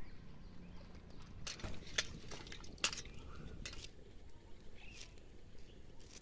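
Light, sharp clicks and clinks of a small knife blade and steel bowl as fresh green herbs are cut by hand, about half a dozen at irregular intervals.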